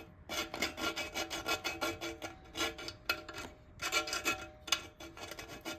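Hand-sanding a rubber anchor (rubber well nut) to slim it down so it fits the hole: quick, rhythmic back-and-forth rasping strokes, with a brief pause about three and a half seconds in.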